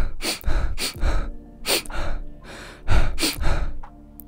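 A man's voice panting heavily, quick loud breaths in and out at about two a second. The huffing is acted out for an exhausted, feverish character.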